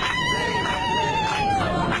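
A long, high held vocal cry, wavering slightly, that slides down and fades about a second and a half in, over the clamour of a crowd of celebrating passengers.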